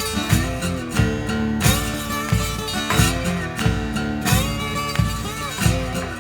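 Background music: a strummed acoustic guitar over a steady beat.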